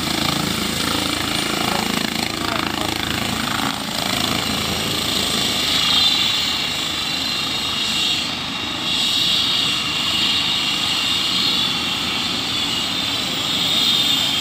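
Light helicopter running on the ground with its rotors turning: steady rotor noise and a high turbine whine.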